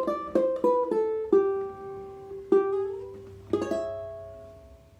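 Maestro Island Series UT-MR ukulele played fingerstyle: a short phrase of plucked notes, then a chord about three and a half seconds in, left to ring and die away.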